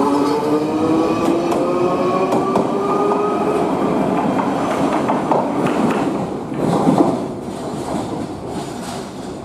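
Hiroshima Electric Railway 700 series tram pulling away: its motor whine rises in pitch for the first few seconds as it accelerates. About six to seven seconds in the wheels clack and squeal over the track points, then the sound fades as the tram draws away.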